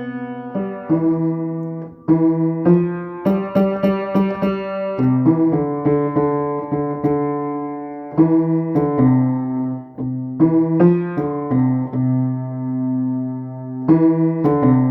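Piano played slowly: single melody notes over low chords that are held for a second or more and ring on under the tune.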